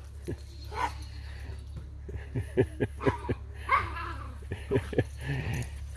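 Dogs play-fighting, giving a string of short, sharp yips and barks that fall in pitch.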